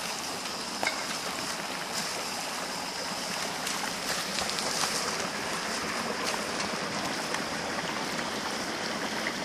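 Shallow stream water running steadily, with a few light clicks and a steady high-pitched whine over it.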